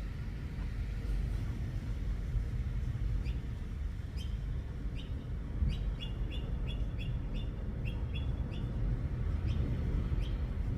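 A bird chirping: a string of short, sharp high chirps that starts about three seconds in, quickens to about three a second in the middle, then thins out and stops near the end, over a steady low rumble.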